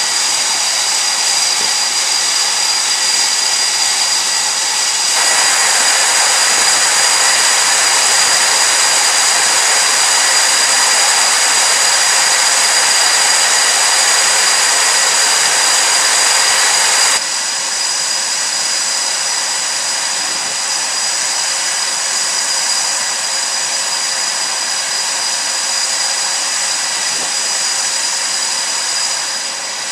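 Jet engines running steadily, a loud high whine with several held tones above a hiss. It jumps louder about five seconds in and drops back abruptly about seventeen seconds in.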